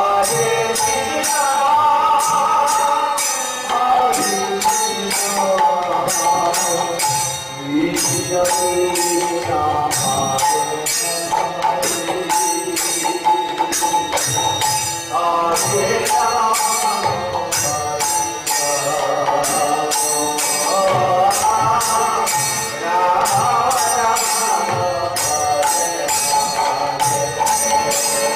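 Devotional kirtan: a group of voices singing a chant to a steady beat of jingling hand cymbals and a hand drum.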